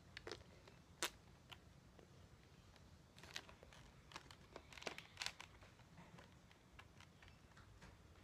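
Near silence: quiet room tone with a few faint scattered clicks and rustles, the sharpest about a second in.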